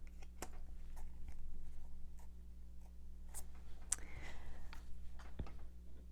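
Tarot cards being handled and laid on a table: a scatter of light clicks and soft paper swishes, over a steady low electrical hum.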